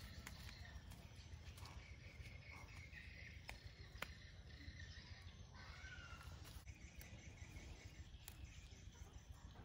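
Near silence: faint outdoor garden ambience, with a few sharp clicks around the middle and brief faint chirps.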